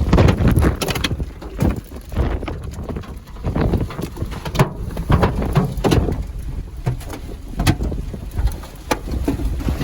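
Hailstones pelting a vehicle: irregular sharp cracks against the body and glass over a steady rumble of wind and driving.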